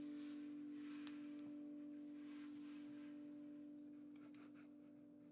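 A handpan's final note ringing out: one steady tone that slowly fades away, with a few faint soft noises and light clicks over it.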